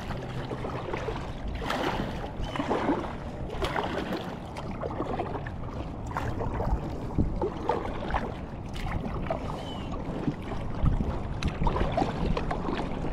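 Water splashing and lapping around a small inflatable packraft, with irregular small knocks and handling noises.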